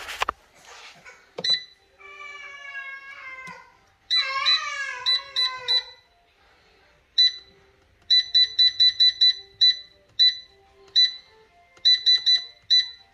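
Control-panel beeps of a Power AirFryer Oven as its temperature and cooking time are set: short high single beeps, with a quick run of about ten in the middle and another few near the end. Before them, a high wavering cry rises and falls for a few seconds.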